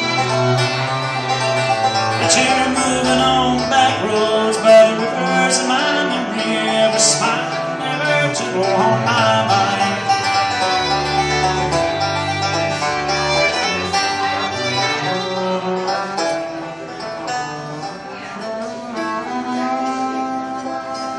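Live bluegrass string band of fiddle, banjo and upright bass playing an instrumental passage without singing: the fiddle holds long bowed notes over banjo picking and a plucked bass line.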